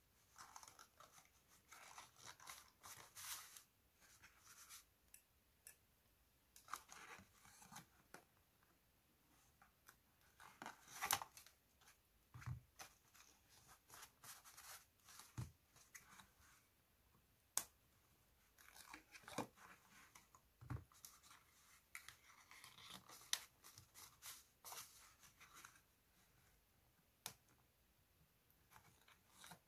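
Paper pieces being handled, folded and stuck down by hand: scattered faint rustles, crinkles and small sharp clicks.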